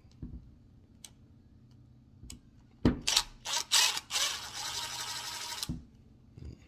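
Hand tools and small metal parts being handled on an RC truck's rear axle hub: a few faint ticks, a sharp knock about three seconds in, some short scrapes, then a steady rasping noise for about a second and a half that stops suddenly.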